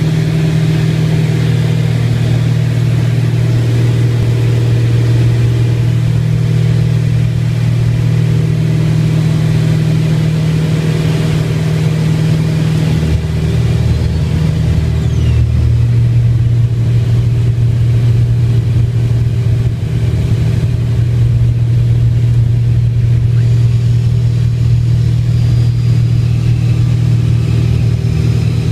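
Twin piston engines and propellers of a Beechcraft Baron heard from inside the cabin in flight, a loud steady drone. Its pitch pattern shifts about thirteen seconds in, a lower tone joining it for a few seconds before it settles again.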